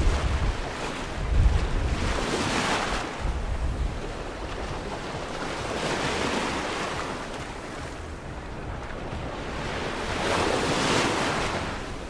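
Sea waves breaking and washing up the beach, the surf swelling about every four seconds, three times in all. Wind buffets the microphone in the first couple of seconds.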